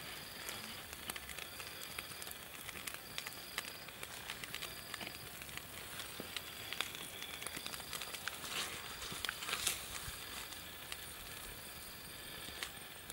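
Wood campfire crackling with scattered sharp pops, two stronger ones a little past the middle. A short high chirp repeats about every second or so in the background.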